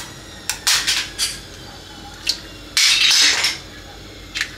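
Kitchen utensils clattering and scraping against dishes and pots in short, irregular bursts, with one longer scrape about three seconds in.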